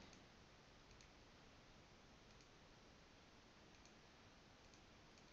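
Near silence: room tone with a few faint computer mouse clicks.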